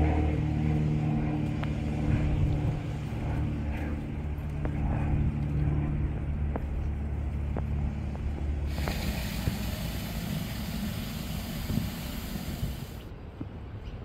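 A steady low engine hum in the background that fades out a little over halfway, followed by about four seconds of hiss that starts and stops abruptly.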